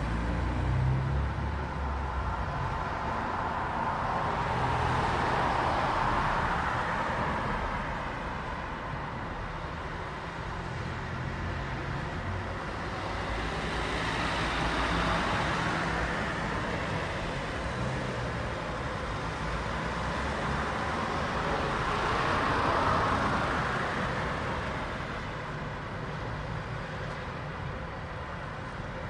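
City street traffic: a continuous wash of tyre and engine noise with a low rumble, as vehicles pass one after another, three of them swelling louder and fading away about five, fifteen and twenty-three seconds in.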